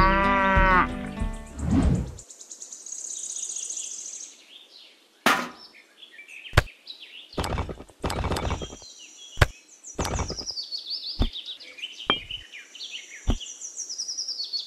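A cow moo fades out in the first two seconds. Then birds chirp while miniature clay bricks are picked up and set down, giving a string of about ten short, light knocks and clicks.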